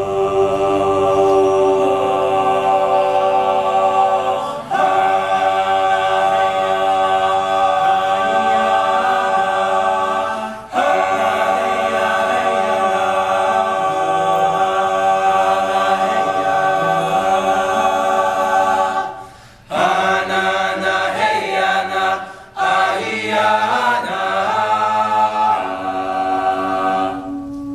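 Male a cappella vocal group singing held, close-harmony chords with no instruments, pausing briefly between phrases.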